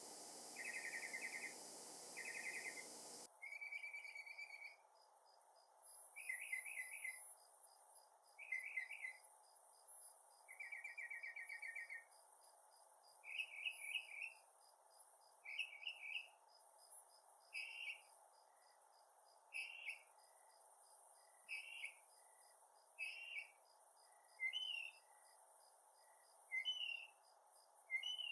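Northern mockingbird singing: a string of varied phrases, each repeated a few times before the next, with short single notes between phrases in the second half. Faint insects chirp steadily beneath the song.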